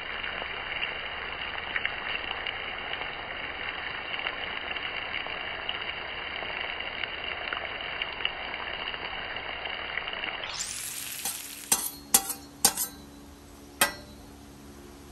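Food frying on a Blaze flat-top griddle: a steady sizzle with small crackles. After about ten seconds the sizzle drops and a few sharp clacks ring out.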